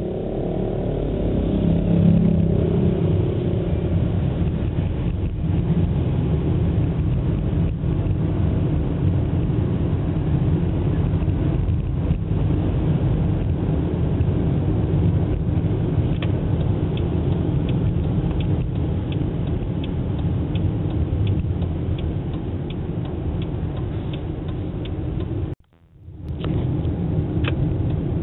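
Motorcycle engine accelerating away from a standstill, its pitch rising over the first couple of seconds, then running steadily with road and wind noise. The sound cuts out briefly about 25 seconds in, and faint regular ticking runs through the last dozen seconds.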